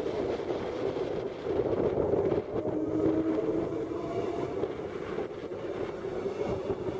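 Queensland Rail electric multiple-unit suburban train running past close by, a steady rumble of its wheels on the rails. A brief hum comes through about two and a half seconds in.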